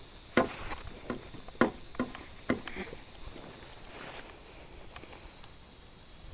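Several sharp knocks and clicks, five in about three seconds, from the home-built air cannon being handled and realigned, then faint outdoor background.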